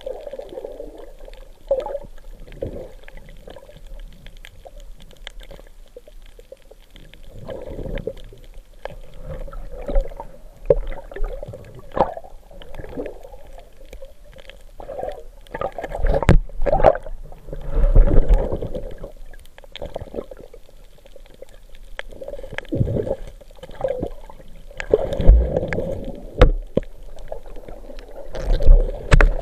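Underwater water noise picked up through a camera's waterproof housing: irregular bubbling and swishing surges with scattered knocks, loudest around the middle and again near the end, when bubbles stream past the lens.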